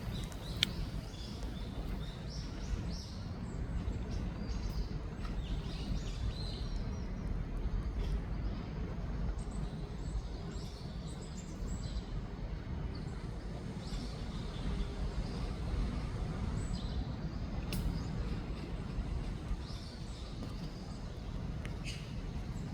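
Small birds chirping on and off over a steady low outdoor rumble, with two sharp clicks, one about half a second in and one later on.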